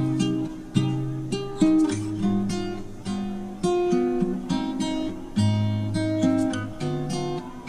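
Background music on acoustic guitar: plucked notes and strummed chords, each starting sharply and dying away.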